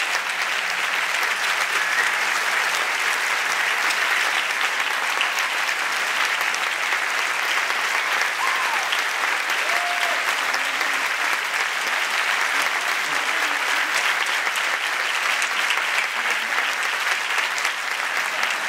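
A large audience applauding steadily and at length, with a few brief calls rising above the clapping.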